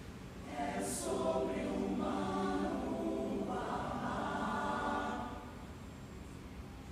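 Mixed-voice choir singing in harmony: a new phrase enters about half a second in with a sharp 's' sound, holds full chords, then softens after about five seconds.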